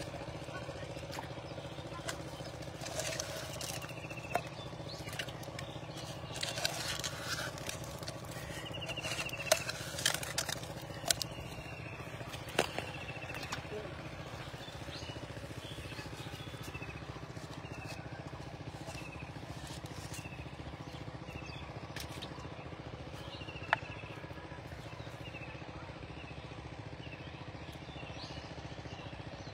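Plastic tarp rustling and a few sharp knocks as small fish are picked from it by hand and dropped into a metal pot. Under it runs a steady low engine hum, and a bird repeats a short falling chirp about once a second.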